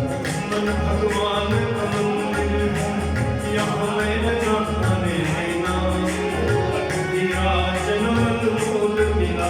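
Hindi devotional bhajan sung by a group of voices over jingling percussion keeping a steady beat, with a low drum stroke recurring about every second and a quarter.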